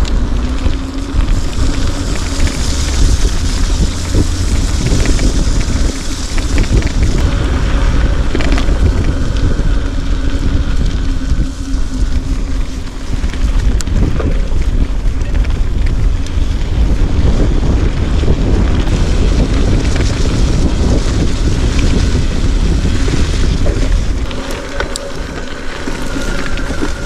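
Wind buffeting the microphone, a loud low rumble that runs on steadily, with a faint steady hum in the first several seconds.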